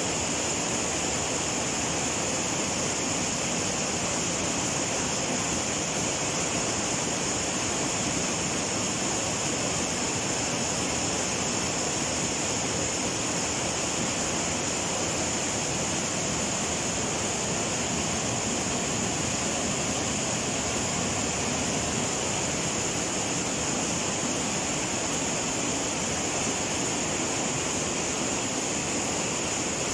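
Steady din of screw-making machines running in a factory: a dense, even hiss with a strong high band, with no separate strokes standing out.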